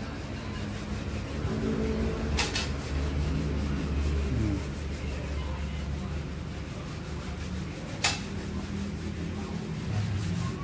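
Steady scraping of sanding on car body filler, with two sharp knocks, about two and a half and eight seconds in.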